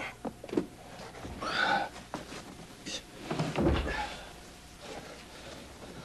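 Knocks, rustling and clunks of things being handled in an open car trunk, with a heavier thud about three and a half seconds in.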